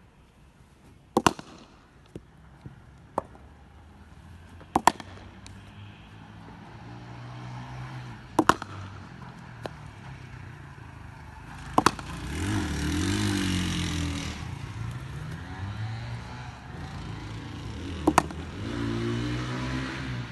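Cricket bat striking a cricket ball five times, a few seconds apart, each a sharp crack heard as a quick double knock. A swell of low background rumble comes up between the fourth and fifth hits.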